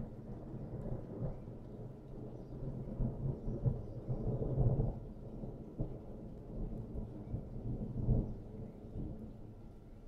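Intense thunder rumbling low, swelling to louder peaks about four seconds in and again about eight seconds in.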